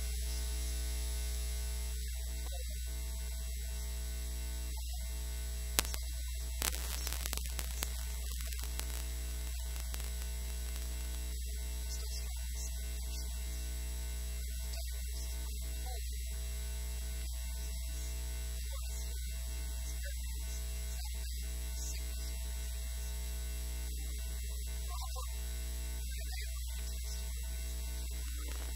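Steady electrical mains hum with a static hiss, and no clear speech above it. A few brief clicks come about six to nine seconds in.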